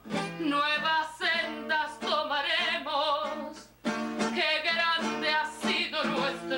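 A woman singing a tango in full voice with a wavering vibrato, accompanied by a plucked acoustic guitar. The voice drops out briefly a little under four seconds in, then comes back in.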